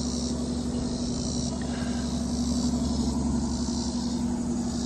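An engine running steadily at idle: a low, even hum that does not change, with a high hiss coming and going over it.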